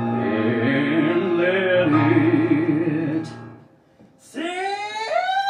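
Live song accompaniment with sustained chords and a wavering melody line, breaking off into a brief hush about three and a half seconds in. A male singer then comes in on a long, rising held note with vibrato.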